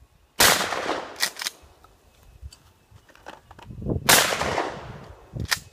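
Two 12 gauge shotgun shots about three and a half seconds apart, each a loud sudden blast that trails off over most of a second, with fainter short clicks in between.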